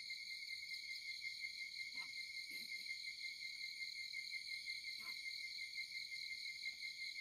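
A steady, unbroken high-pitched insect trill, like a cricket calling, with a second higher tone above it. A few faint, short, lower sounds come about two and five seconds in.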